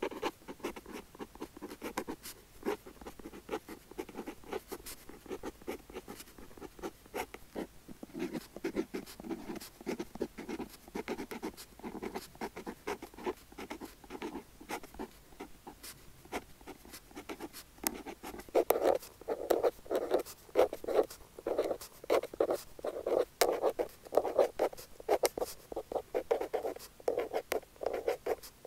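Pen nib scratching across paper in continuous handwriting strokes. The strokes grow louder and more regular about two-thirds of the way through.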